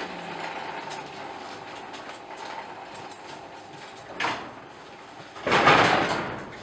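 A shop door being pulled shut. There is low steady background noise at first, then a short clatter about four seconds in, then a loud rolling, rattling slide near the end.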